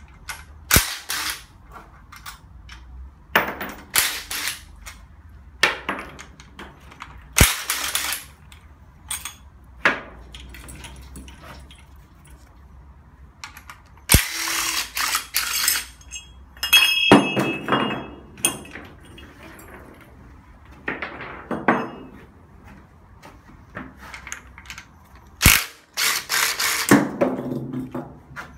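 Hand tools working on a bare Hyundai Accent engine during disassembly: scattered sharp metal clicks and knocks, with several stretches of ratcheting and rattling a second or two long and a brief metallic ring about halfway.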